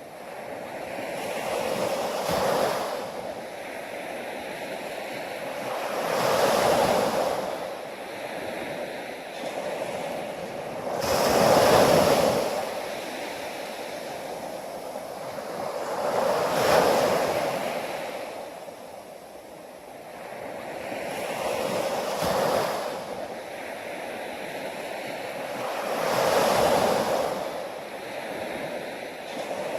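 Ocean waves breaking on a shore, one after another, each swelling and then fading away about every five seconds.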